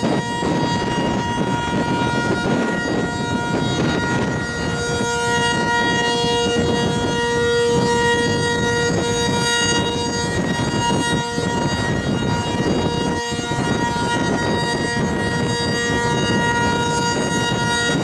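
Sentry 15V2T dual-tone outdoor warning siren sounding a steady note, with a heavy rumble of wind on the microphone underneath.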